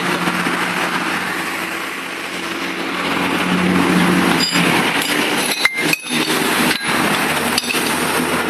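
An engine running steadily, growing louder and higher for a while about three to four seconds in, with a few sharp clinks and knocks in the second half.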